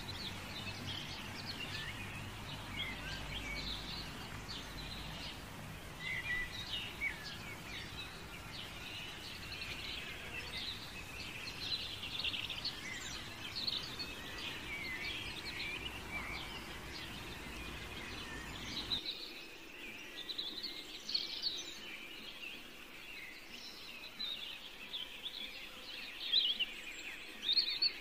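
Many small birds chirping and twittering in a dense, overlapping chorus, with a low hum underneath that cuts off abruptly about two-thirds of the way through.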